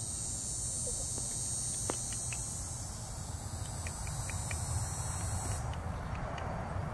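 Insects buzzing steadily in a high, even drone that cuts off suddenly about two-thirds of the way through, over a steady low rumble, with a few faint clicks.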